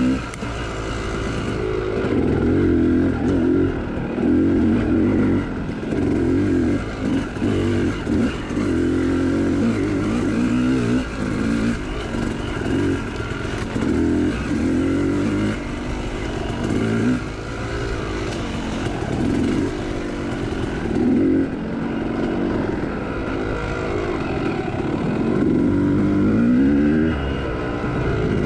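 Two-stroke Yamaha YZ dirt bike engine revving hard and dropping back over and over, its pitch climbing and falling every second or two as the rider accelerates, shifts and backs off through tight woods trail.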